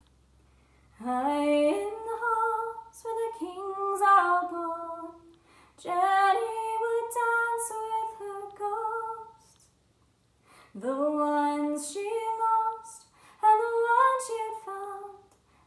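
A woman singing a slow melody unaccompanied, in long phrases with short pauses between them.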